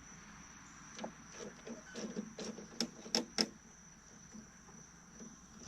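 Scattered sharp clicks and light metal taps from a wrench working on a push mower's drive-control cable, with three louder clicks close together about three seconds in, over a steady high-pitched insect buzz.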